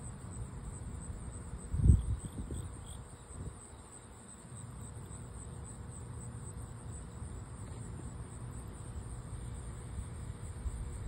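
Steady high-pitched trilling of insects, with a low rumble beneath and one brief thump about two seconds in.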